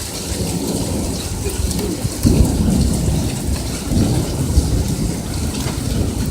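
Heavy rain pouring steadily, with thunder rumbling in about two seconds in and rolling louder again around four seconds.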